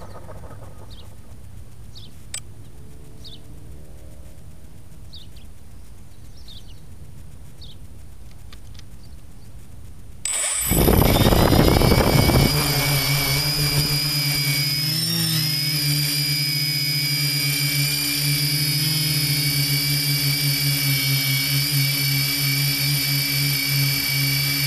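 Quadcopter drone's propellers spinning up suddenly about ten seconds in. A loud rush of propeller wash hits the microphone for about two seconds as it lifts off, then settles into a steady high whine, with a brief wobble in pitch a few seconds later.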